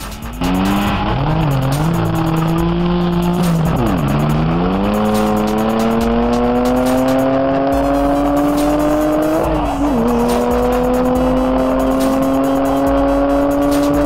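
Volkswagen van fitted with a Porsche engine accelerating hard through the gears. The engine note rises steadily, dipping sharply at upshifts about 4 and 10 seconds in, then climbing again.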